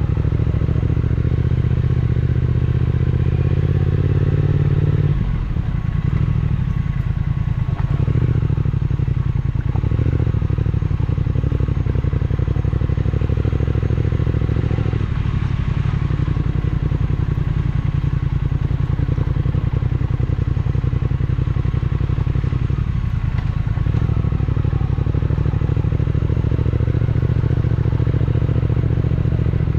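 Triumph Speed Twin 1200's 1200 cc parallel-twin engine running at low, changing throttle over rough dirt, its note dropping and picking up again several times.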